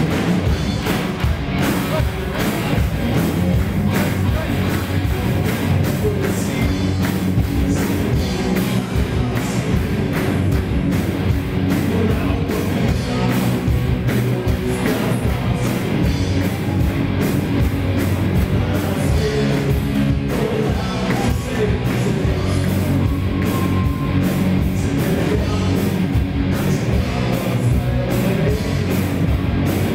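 Rock band playing live: electric guitars, bass and drum kit, steady and loud.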